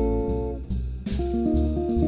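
Jazz trio playing: acoustic guitar chords ringing over plucked upright double bass notes, with light cymbal strokes from the drum kit keeping time. A new guitar chord is struck a little past halfway.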